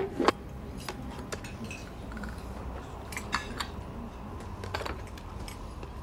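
Crockery and glassware clinking at a table, coffee cups and saucers and a glass bottle. Two sharp clinks right at the start are the loudest, and a few lighter, scattered clinks follow over a low steady room hum.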